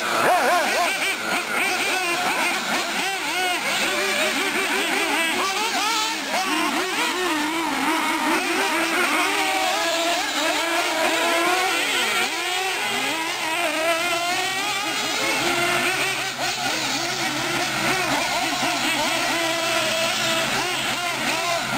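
Several 1/8-scale nitro radio-controlled off-road trucks and buggies racing on a dirt track, their small high-revving engines whining and rising and falling in pitch over one another without a break.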